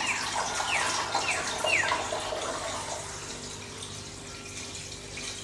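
Water running into a stockpot, a steady splashing hiss with a few short falling whistles early on, growing quieter in the second half.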